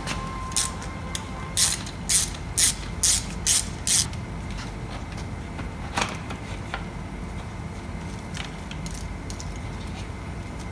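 Hand tool loosening the screws on a motorcycle headlight back plate: a run of sharp clicks about two a second, then a few scattered clicks.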